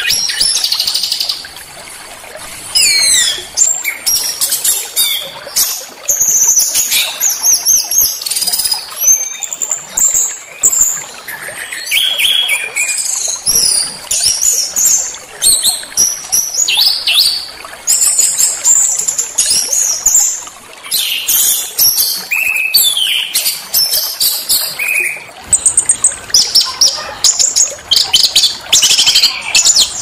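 Small songbirds singing and calling: a dense run of high-pitched chirps, quick rising and falling whistles and rapid trills, one phrase after another with hardly a pause.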